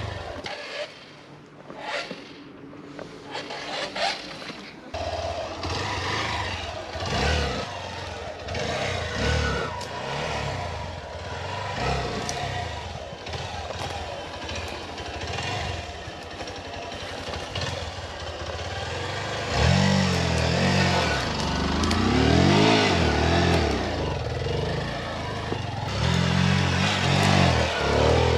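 Hero Xpulse 200 single-cylinder motorcycle engine revving up and down in repeated surges while climbing a steep trail, which the rider says is losing power on the uphill. It is quieter for the first few seconds, and the hardest revving comes in the last third.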